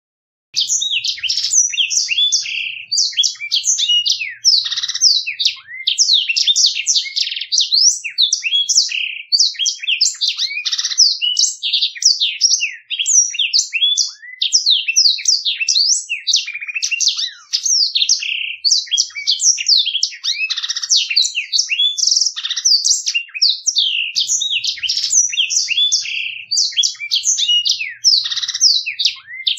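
Black-throated canary (blackthroat) singing a continuous, fast, clear rolling song of high twittering notes and trills, starting about half a second in.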